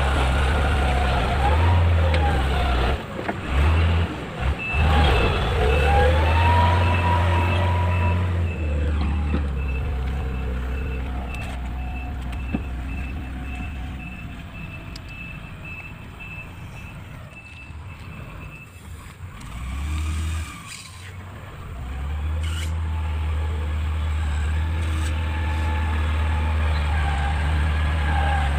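Mitsubishi motor grader's diesel engine running under load as it works loose earth: loud at first, fading as the machine moves off about nine seconds in, and loud again from about twenty-two seconds. A rapid series of short high beeps, its reversing alarm, sounds from about four seconds in until about nineteen.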